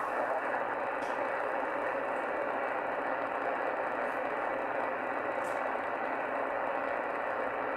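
Steady static hiss from a shortwave receiver tuned to 27.385 MHz (CB channel 38) in lower-sideband mode, with no voice coming through, and a couple of faint ticks.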